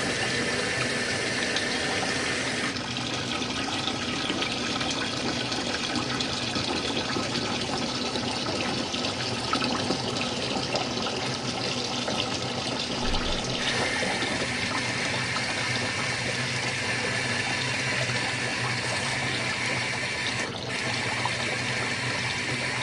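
Water running steadily from a faucet into a portable washing machine's tub as it is topped up, the rush changing in tone about three seconds in and again about fourteen seconds in.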